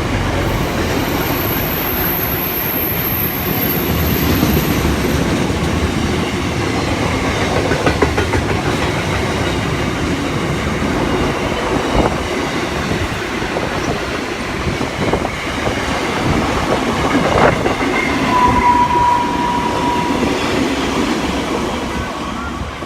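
Freight train wagons rolling past at close range, wheels clattering over the rail joints with a few sharp knocks and a brief wheel squeal near the end; the sound begins to fade as the last wagons go by.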